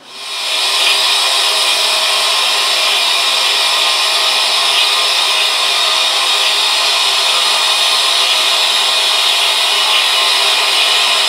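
BR Standard Class 4 4-6-0 steam locomotive 75069 releasing steam: a loud, steady hiss that builds up over the first half second and then holds even.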